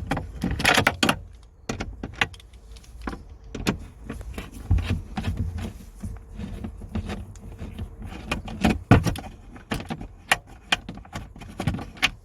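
Irregular clicks, knocks and rattles of plastic dashboard trim and loose parts being handled and moved, with a few duller thumps.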